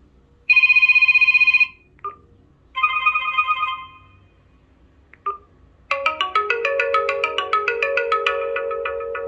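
Sonim XP3 phone ringtones previewed one after another on the phone's speaker. First a fast pulsing electronic trill for about a second, then a shorter pulsing trill, then from about six seconds in a chiming melodic tune over held lower notes. A short click comes before each tone.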